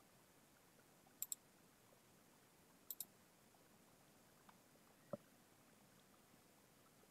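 Quiet room tone broken by two sharp double clicks, about a second and three seconds in, then a single duller knock about five seconds in.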